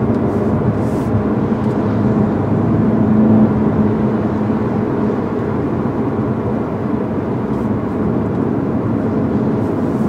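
2013 Volkswagen Golf GTI's 2.0-litre turbocharged four-cylinder engine running at a steady cruise, heard inside the cabin, mixed with tyre and road noise from a wet road. The engine note swells a little about three seconds in, then settles.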